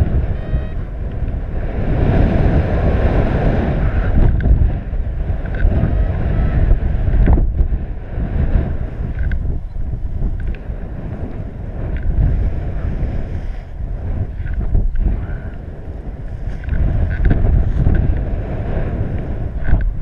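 Airflow from paraglider flight buffeting the camera's microphone: a loud, low wind rumble that swells and eases in gusts.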